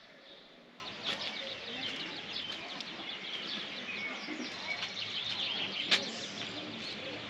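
Birds chirping and singing over a steady outdoor background that starts abruptly about a second in, with one sharp click about six seconds in.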